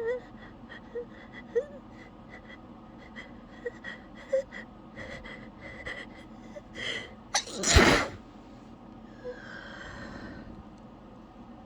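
A held-back sneeze: small sniffs and squeaky, whimpering catches of breath, then a quick double inhale and one explosive, drenching sneeze about eight seconds in, followed by a breathy exhale.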